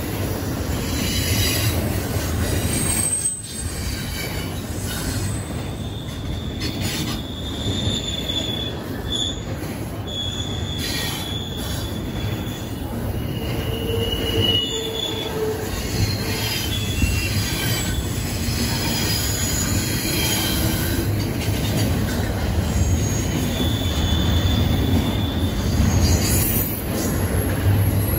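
Double-stack intermodal freight cars rolling past close by: a steady rumble of steel wheels on rail, with thin high-pitched wheel squeals that come and go.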